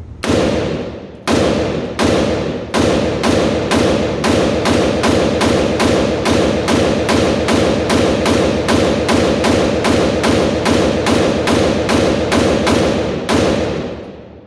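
AR-15 pistol firing about thirty shots of steel-cased ammunition semi-automatically, each shot ringing out briefly. The first few shots come slowly, then they settle to a rapid, even string of about three a second. The rifle is cycling reliably through a full magazine, which its owner credits to the steel-cased ammo after it had been jamming after one shot.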